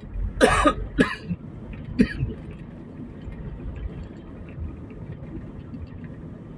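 A person coughs and clears their throat, three short bursts within the first two seconds or so, over the steady low rumble of a car driving.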